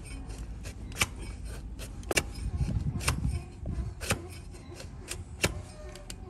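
Long-handled hoof paring blade shaving horn from a donkey's hoof: crisp single cutting strokes, about one a second.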